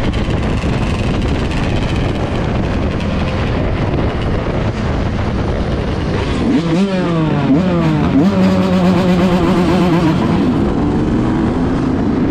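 Motorcycle ride with wind rushing over the microphone. About seven seconds in, the engine's note comes through clearly: it rises, drops, steps back up as with a gear change, holds steady for a couple of seconds and climbs again near the end.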